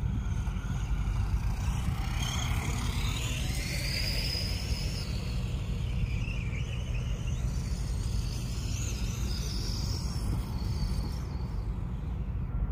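Steady low rumble of wind on the microphone, with the faint, wavering whine of a small radio-controlled toy truck's motor rising and falling in pitch as it drives.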